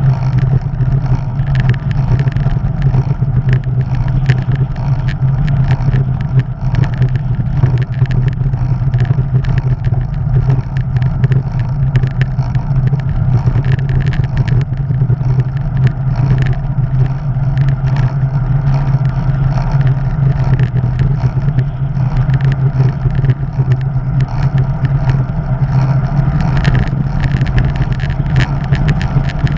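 Loud, steady wind noise on the microphone of an action camera riding on a bicycle, mixed with tyre noise on the tarmac and frequent small rattles and clicks.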